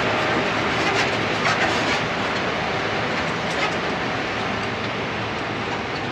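Harvest machinery running steadily in the wheat field, an even rushing mechanical noise with no distinct rhythm, with a few faint clicks in the first couple of seconds.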